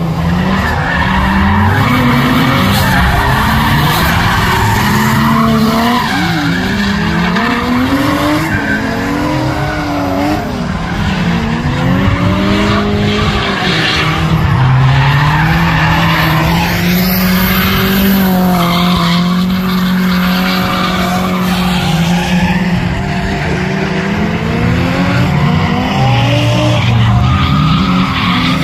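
Drift car engine revving up and down hard as the car slides sideways, with its tyres squealing and skidding. Around the middle the revs hold steady for several seconds before swinging again.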